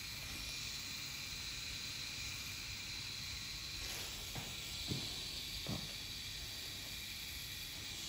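Micropigmentation (permanent-makeup) pen running with a faint, steady high whir and hiss, with a few soft clicks about halfway through.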